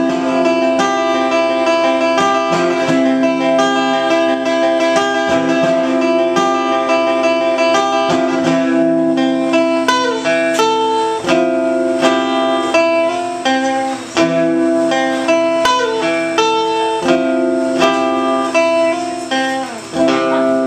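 Two acoustic guitars played together, strumming and picking chords in a steady rhythm, with a few sliding notes.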